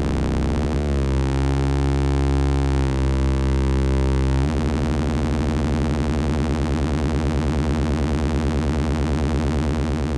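Analog synthesizer drone from Behringer System 100 oscillators run through the 121 Dual VCF, with the filter sweeping and reshaping the tone. About four and a half seconds in it switches abruptly to a fast-pulsing, buzzy texture.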